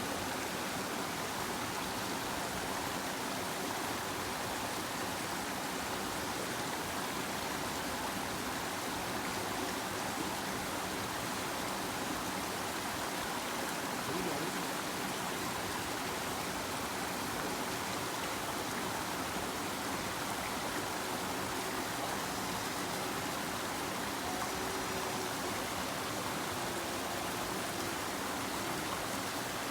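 A river flowing, a steady rush of water with no change in level.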